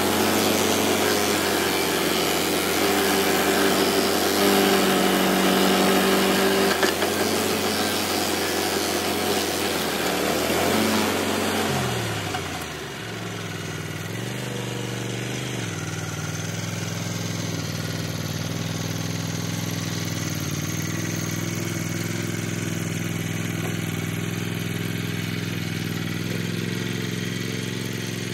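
Tracked stump grinder's engine running under load while its cutter wheel grinds out a golden cane palm stump in soil, with a broad grinding noise. About twelve seconds in, the grinding stops and the engine note dips and rises. It then runs steadily and more quietly as the machine is moved away.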